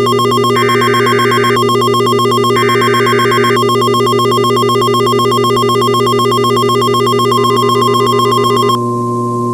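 Emergency Alert System tones for a NOAA Weather Radio tornado warning: two one-second bursts of SAME header data screech over a rapidly pulsing, ringing alert tone. The pulsing stops near the end, leaving the steady 1050 Hz weather radio warning alarm tone, with a low steady hum underneath throughout.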